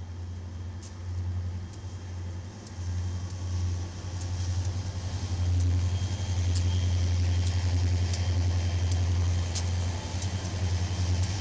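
Diesel-electric freight locomotives passing close by, their engines running with a steady low drone that grows louder about halfway through as the lead units come alongside. A few faint sharp clicks sound over it.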